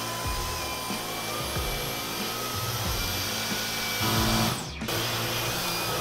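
Dyson V15 Detect cordless stick vacuum running with its Digital Motorbar cleaner head on a shag rug: a steady motor whine over a rushing suction noise. It cuts out briefly about five seconds in.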